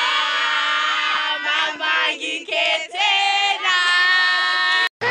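A group of girls singing together, several voices holding long notes with glides up and down; the singing cuts off abruptly near the end.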